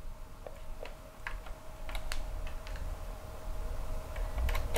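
Scattered small plastic clicks and taps as a control knob and push buttons are pressed onto a car radio's faceplate, over a faint steady hum.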